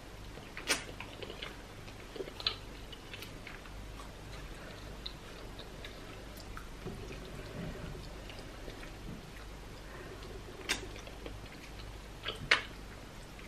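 Mouth sounds of someone eating pounded yam with okra soup by hand: soft chewing and swallowing, with four sharp clicks, the loudest near the end.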